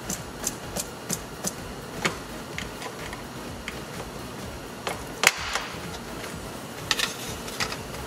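Plastic interior trim clips being worked loose with a hand tool: sharp plastic clicks and snaps, a quick run of about five in the first second and a half, then scattered ones, the loudest about five seconds in.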